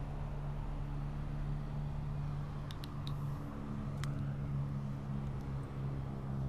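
Steady low hum of a motor running nearby, with a few light clicks around three and four seconds in and a sharper click at the very end from handling the baitcasting rod and reel.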